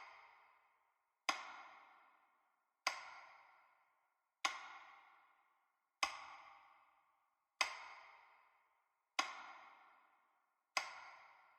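A single bell-like chime struck over and over at an even pace, about once every second and a half. Each strike starts sharply and rings out for more than a second before the next one.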